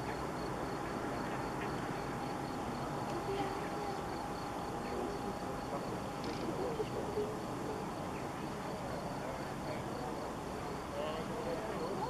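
Distant Avro Lancaster's four Rolls-Royce Merlin V12 engines running at low power during the landing roll-out, a steady drone. A fast, even, high-pitched chirping runs through it.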